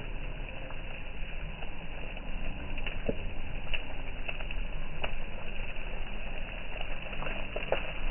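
Wood bonfire burning: a steady rushing hiss with scattered crackles and pops from the burning wood.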